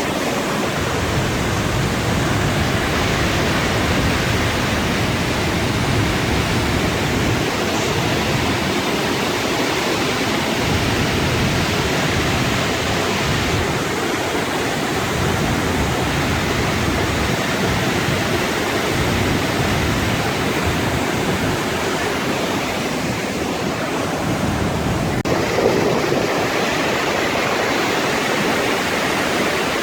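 Flash-flood water rushing and pouring down a desert canyon, a loud, steady roar of turbulent water.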